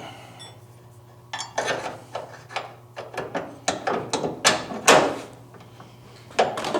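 A run of irregular metallic clicks and knocks, about a dozen over four seconds with one more near the end, as parts of a car door hinge are fitted and worked by hand. A steady low hum runs underneath.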